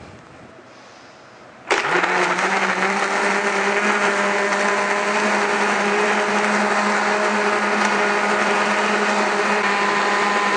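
Countertop blender switching on abruptly just under two seconds in and running at a steady pitch, blending papaya, milk and ice cubes into papaya milk.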